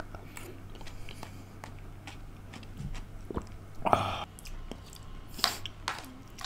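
Close-up chewing of soft stir-fried udon noodles in sauce, with small wet mouth clicks. About four seconds in and again near the end come a few louder scrapes and knocks as a metal spoon scoops steamed rice from a plate.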